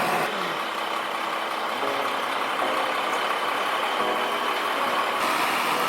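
Engine of a heavy machine running steadily.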